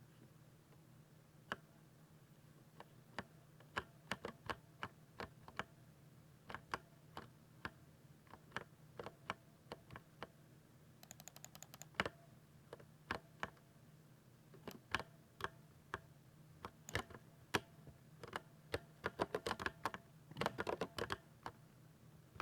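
Typing on a 60% mechanical keyboard with silver switches: irregular, separate key presses, a brief fast rattle of rapid taps about halfway through, and a dense flurry of keystrokes near the end.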